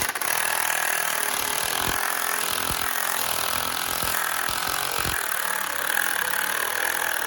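Impact gun running slowly and steadily, driving a bolt into a drilled hole so that it cuts its own threads, with a few scattered thuds.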